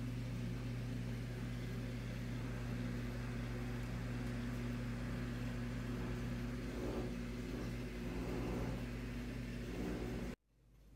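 Steady low electrical hum with a faint hiss from a running reef aquarium's equipment. It cuts off suddenly near the end.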